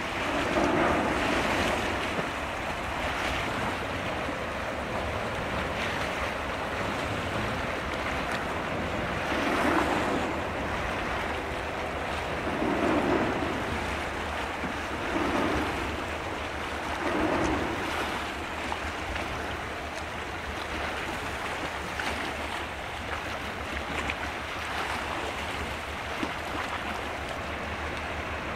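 Sea water washing against the shore in repeated surges a few seconds apart, over a steady low rumble.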